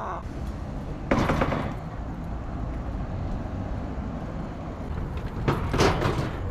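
BMX bike rolling over pavement with a steady low rumble, broken by a loud clatter about a second in and two sharp hits near the end as the bike takes off onto and strikes a metal-framed wooden box.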